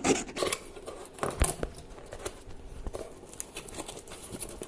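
Irregular scratching and small clicks of a tool working a small hole through the cardboard wall of a homemade incubator, with sharper knocks about a second and a half in.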